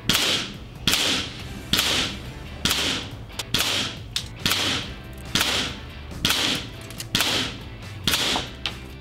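Ten sharp cracks, evenly spaced about a second apart, each with a short fading tail: the shots of a ten-shot air rifle group, heard over background music.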